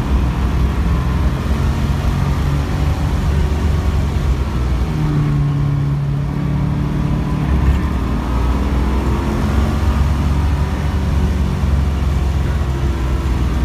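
1975 Pontiac Trans Am's V8 heard from inside the car, running hard through a corner and then accelerating, its pitch climbing from about eight seconds in.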